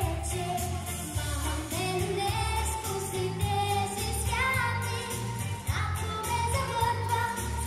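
Children's vocal group singing together into stage microphones over a recorded backing track with a steady beat.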